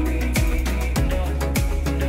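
Background music with a steady beat, a deep kick drum about every 0.6 seconds under bass and other instruments.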